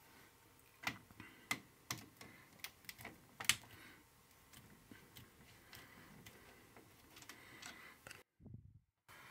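Faint, irregular small clicks and taps of hand work on a circuit breaker's wiring: a wire, tools and plastic parts knocking as a conductor is readied and fitted into the breaker's screw terminal. The clicks are sharper and closer together in the first few seconds, then softer and sparser, and the sound breaks off briefly near the end.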